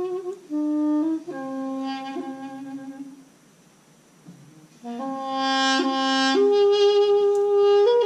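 A small handheld wind instrument played live, a melody of held notes stepping up and down, with a pause of about a second and a half just past the middle before the playing resumes.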